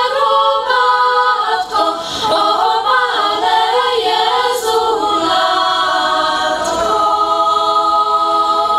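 Children's and girls' choir singing a cappella, the voices moving through a phrase and then holding a long final chord that stops at the very end.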